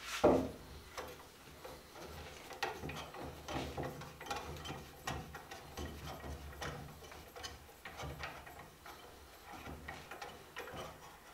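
Cast-iron Stanley No. 113 compass plane knocking down onto the wood about a quarter second in, then a run of faint irregular metallic clicks and light scrapes as it is handled on the curved workpiece.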